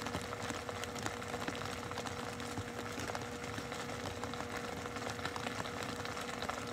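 Steady, low-level background noise with a faint, steady hum and a few faint ticks.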